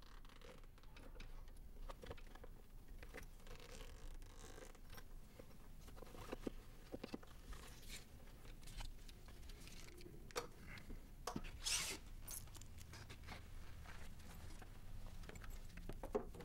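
Quiet rustling, scraping and small clicks of a person moving about and handling things in a small room, with a short zip-like rasp about twelve seconds in.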